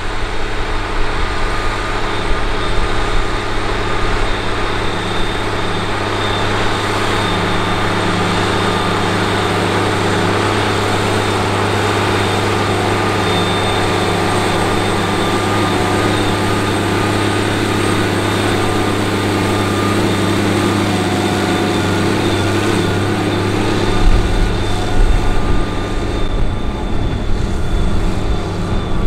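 Steiger SM-325 Panther IV articulated four-wheel-drive tractor's Komatsu diesel engine running steadily under load while pulling a chisel plow. In the last few seconds the low rumble gets louder and uneven.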